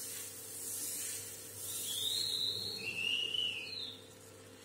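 Ladle swishing and scraping dosa batter across a hot tawa in circles, a soft hiss that swells and fades with each stroke. Halfway through, three short high whistling tones sound one after another.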